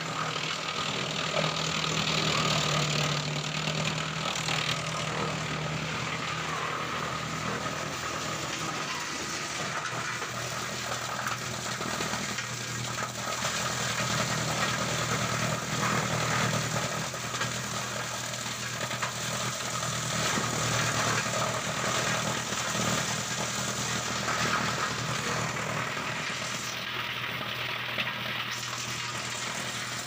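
Drum wood chipper and its chip conveyor running steadily: a low machine hum under a constant rushing noise, with occasional faint knocks as wood goes through.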